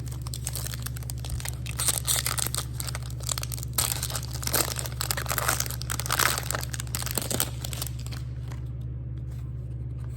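Plastic foil trading-card pack wrapper crinkling and tearing as a pack is opened by hand, a dense crackle that stops about eight seconds in.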